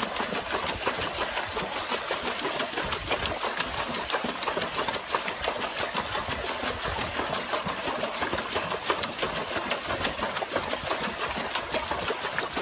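A dog paddling its front legs fast in a plastic tub of water, a steady, rapid splashing and slapping of water.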